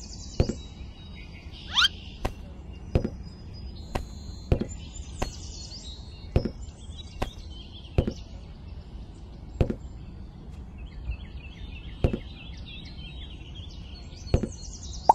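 A series of short, sharp taps or knocks at uneven intervals, about one every half second to a second, with a pause between them two-thirds of the way through. Birds chirp in the background.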